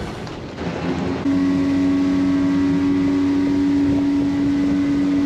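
Pontoon boat's outboard motor running at a steady cruising speed: a constant, unwavering drone that comes in abruptly about a second in.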